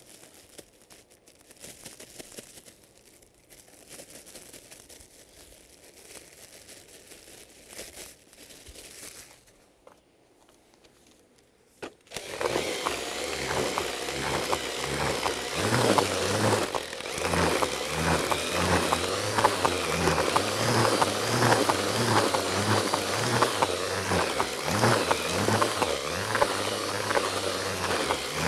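Damp fishing groundbait being worked in a bucket: soft crumbling and rustling, then from about twelve seconds in a sudden, much louder, steady rhythmic scraping and rumbling as the mix is worked through.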